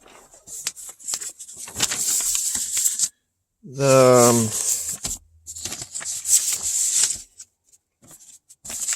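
Scratchy, irregular rustling and rubbing of wiring and plastic connectors being handled. About four seconds in there is a short low voiced sound that falls in pitch.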